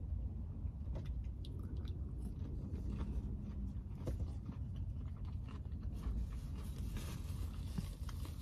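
A person chewing and biting crunchy food close to the microphone, with small crunches and clicks throughout. In the last couple of seconds a paper food wrapper crinkles as a wrapped sandwich is bitten into.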